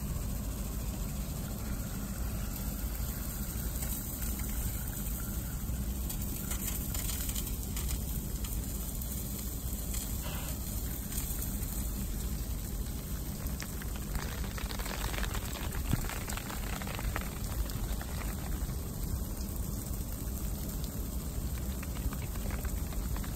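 Mini sprinklers spraying fine water over a field: a steady rain-like hiss over a constant low rumble, the hiss growing brighter for a few seconds about two-thirds of the way through.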